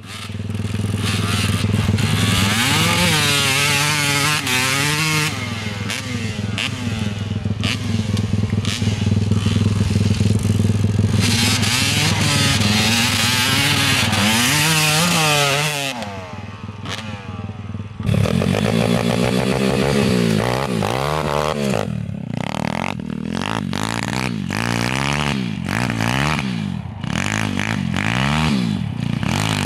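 Pit bike engines revving up and down while the bikes slide on snow, the pitch rising and falling every second or so. It drops quieter for about two seconds past the middle, then another stretch of rapid revving follows.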